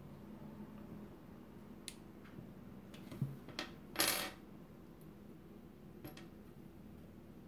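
Light metallic clicks and clinks of Allen wrenches and small steel knife parts being handled during disassembly, a few scattered taps with one louder brief clatter about four seconds in.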